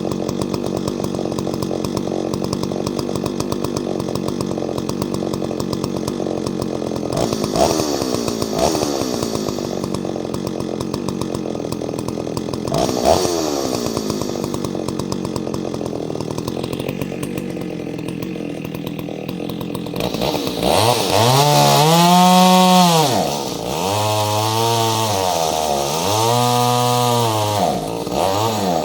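Ported Solo 670 two-stroke chainsaw running at a steady low speed, with two quick blips of the throttle. About two-thirds of the way in it is revved up and let back down three times.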